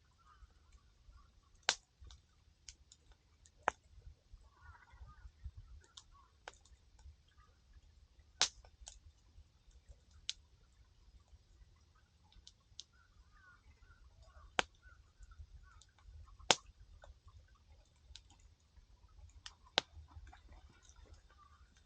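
Wood fire crackling: irregular sharp pops and snaps, with a handful of louder cracks several seconds apart, over a faint low rumble.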